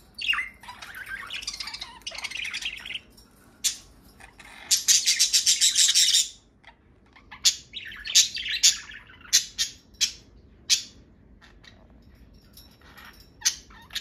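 Budgerigars chattering and warbling, with a loud run of rapid harsh squawks about five seconds in, then a string of short, sharp chirps.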